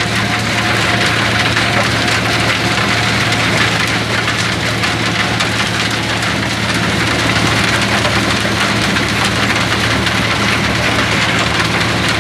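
Stone crusher running: a steady low drone from its drive under a continuous dense crackle and rattle of rock being broken.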